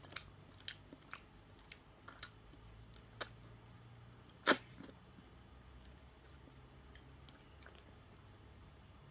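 Person eating ramen noodles: a few light, sharp clicks of chewing, then one loud, short slurp of noodles about four and a half seconds in.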